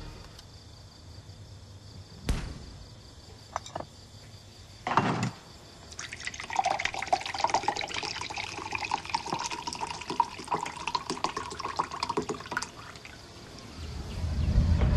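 Liquid pouring and trickling for several seconds, after a sharp knock and a thump. Near the end a low rumbling swell builds up and cuts off suddenly.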